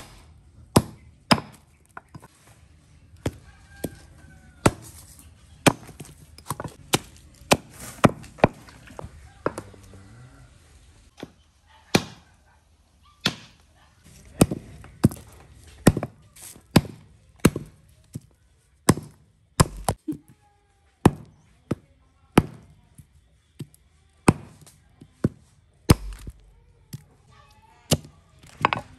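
Knife chopping food: dozens of sharp chops, about one a second, with a couple of short pauses.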